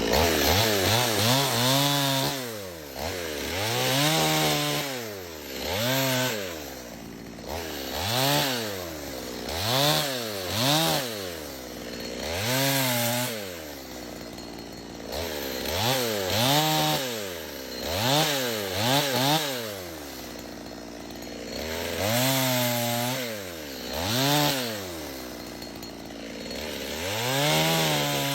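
Chainsaw engine revving up and dropping back, over and over, about every two seconds.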